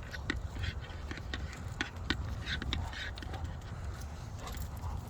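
Irregular footsteps and scuffs on a dog walk, with short clicks from the dogs' movement over a steady low rumble.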